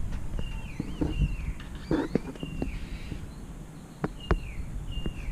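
A bird calling over and over, short chirps that drop in pitch at the end, repeated about once a second, with a few light knocks in between.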